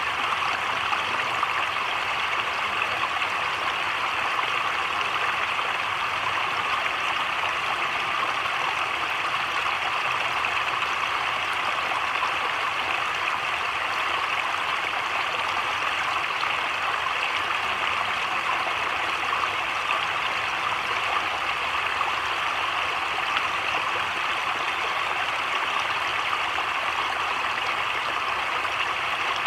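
Heavy rain falling on a slow creek and the leaves around it, a steady, even hiss that never changes.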